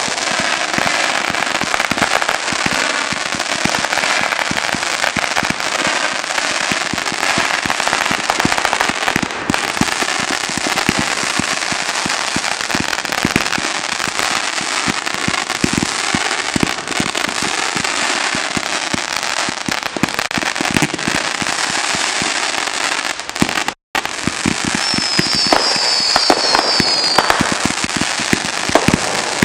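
Phantom Fireworks consumer multi-shot cakes firing in a continuous finale barrage: a dense, unbroken stream of rapid shots and crackling. The sound cuts out for an instant about three-quarters of the way through.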